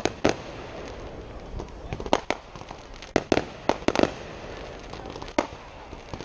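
Aerial firework shells bursting: a string of sharp bangs at uneven intervals, several in quick succession around the middle, over a steady background hum.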